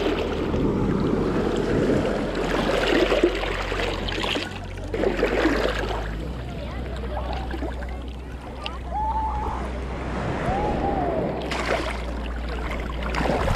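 Ocean surf washing on the shore, with faint voices of people nearby.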